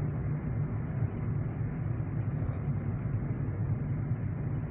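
Car driving on a road, heard from inside the cabin: a steady low rumble of engine and tyre noise.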